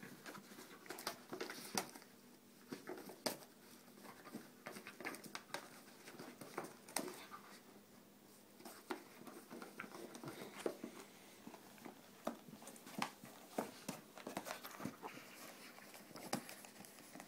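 A small dog pawing and gnawing at a small gift-wrapped box. Its claws, teeth and the wrapping paper make irregular light clicks, scratches and rustles.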